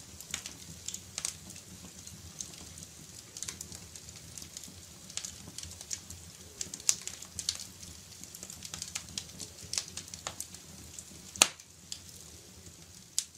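Wood fire crackling in a fireplace: irregular small pops and snaps over a faint low rumble, with one sharper pop near the end.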